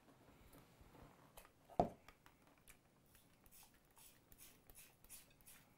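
Small plastic enclosure handled by hand: faint clicks and rustles, with one soft knock of plastic about two seconds in.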